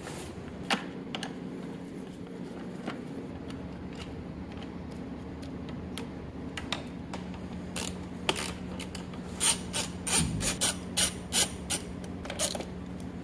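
Hand ratchet clicking in short runs as bolts are undone, with scattered clicks and knocks of parts being handled. The clicking is densest in the last few seconds, over a steady low hum.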